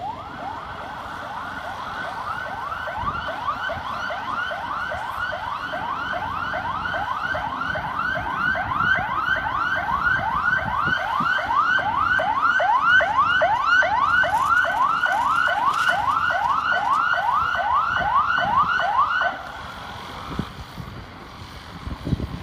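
Emergency-vehicle siren sounding a fast rising sweep, about two a second, growing steadily louder as it approaches and cutting off suddenly about 19 seconds in.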